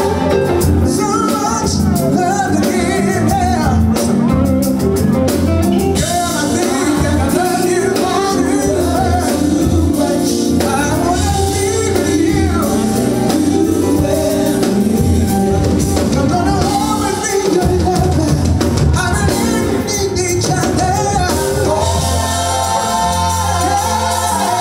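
Male R&B vocalist singing live with a band: electric guitars, bass guitar, keyboards and drum kit under a gliding sung melody.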